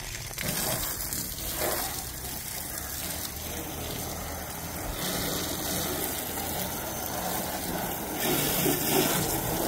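Water spraying from a hose onto a soaped car engine bay, splashing on the engine and the underside of the bonnet. The spray is steady and gets louder near the end.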